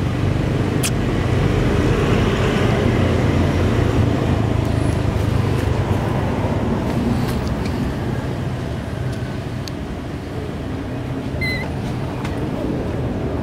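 Steady low rumble of an idling engine, with a short high squeak near the end.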